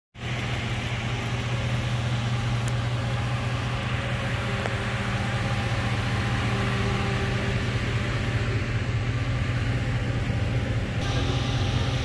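2007 GMC Denali's V8 engine idling steadily, its A/C compressor not engaging: a fault traced to a 5-volt reference circuit shorted to ground at the refrigerant pressure sensor (code P0532).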